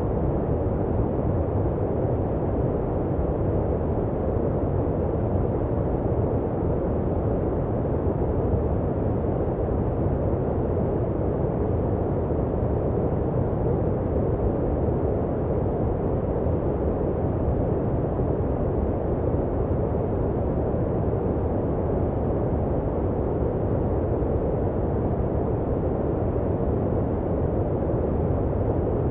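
Steady generated noise of the kind played to help sleep or soothe a baby: an even, deep, muffled hiss with almost no treble, unchanging throughout.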